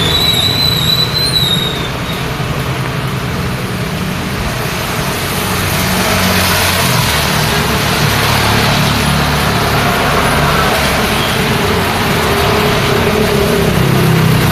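Rain and road traffic: a steady hiss of rain and wet tyres over the low rumble of passing vehicle engines. A high, wavering squeal sounds for about the first two seconds.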